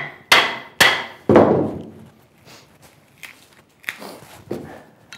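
Four sharp wooden knocks in quick succession, a hand tool being struck into chestnut wood, each with a short ringing tail, followed by a few softer knocks later on.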